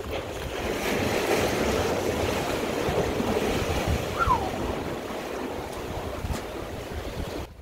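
Sea surf washing against the shore rocks, a steady rushing wash of water.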